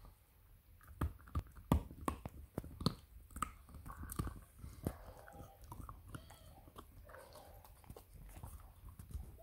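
French Bulldog gnawing and chewing a bone: irregular sharp crunches and clicks of teeth on the bone, loudest in the first two seconds.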